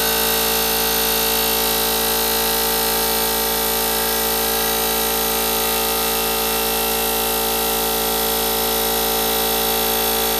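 Harbor Freight 20-gallon oil-lubricated reciprocating air compressor running steadily, its electric motor and piston pump making an even, loud drone of many steady tones over a hiss. Its crankcase holds Royal Purple compressor oil that has done 100 hours and is due for a change.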